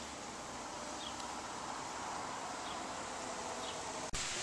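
Steady outdoor ambience, an even low hiss, with a few faint short high chirps. It drops out for an instant near the end.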